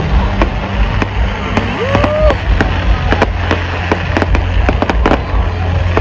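Fireworks exploding: many sharp bangs and crackles in quick, irregular succession over a steady low rumble.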